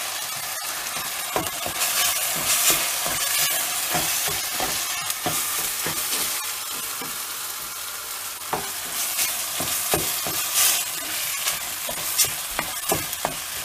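Onion, peppers, tomato and grated boiled potato frying in a stainless steel pot with a steady sizzle. A wooden spoon stirs through them, making frequent scrapes and knocks against the pot.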